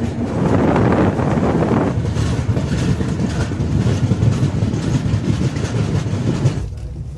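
Train running on the rails: a steady rumble with wheel and rail clatter. It is loudest in the first two seconds and drops away sharply near the end.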